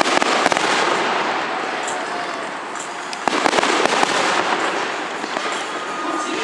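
Fireworks going off: sharp bursts at the start and again about halfway through, over a continuous crackle.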